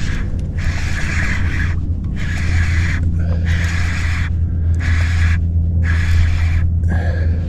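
Baitcasting reel being wound in repeated short spells, a hiss that starts and stops about seven times over a steady low hum.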